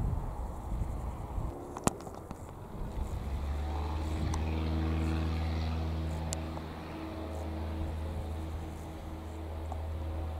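Wind buffeting the microphone at first, a sharp click about two seconds in, then from about three seconds in an engine running steadily with a low, even hum.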